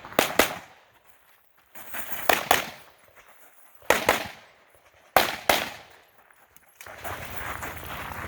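Gunshots in quick pairs, four volleys spaced a second or two apart, the double-taps of a practical-shooting stage run. A steady rustling noise takes over near the end.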